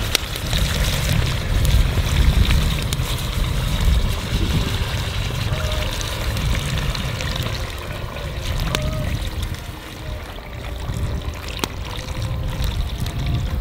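Water pouring in a thin stream from a plastic bottle into a cast-iron cauldron of browned chicken pieces, splashing and trickling as the broth level rises. A low wind rumble on the microphone runs underneath.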